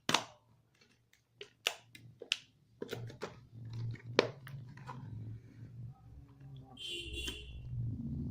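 Hands handling and opening a cardboard product box: a string of taps and clicks, with a short rasp of cardboard about seven seconds in.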